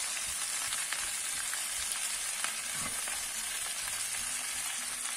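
Chopped green peppers sizzling in hot oil in a frying pan over high heat, a steady sizzle with small crackles, while a spatula stirs them through the pan.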